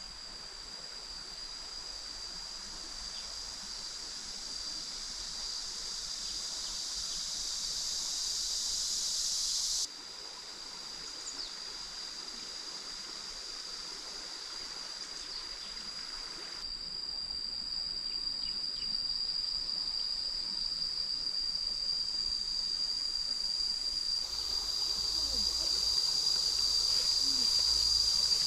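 A steady, high-pitched drone of insects, a chorus of cicadas or crickets, over a faint wash of running water. It drops sharply about ten seconds in, then grows gradually louder toward the end.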